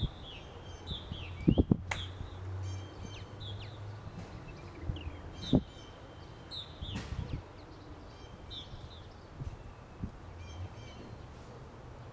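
Several birds chirping outdoors, short high calls repeated throughout, over a faint low hum. A few dull knocks stand out, the loudest about one and a half seconds in and another near the middle.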